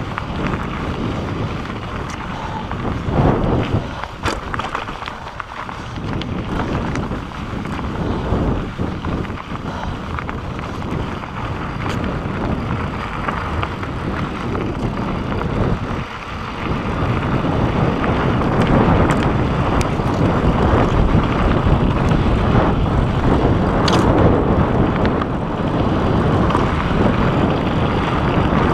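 Wind buffeting the camera microphone on a fast mountain-bike descent, with tyres rumbling over a loose, rocky dirt trail and the bike rattling and knocking over bumps. It gets louder about two-thirds of the way through as speed picks up.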